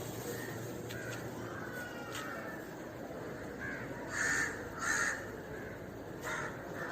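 A crow cawing: two loud, harsh caws about a second apart, then a fainter third near the end.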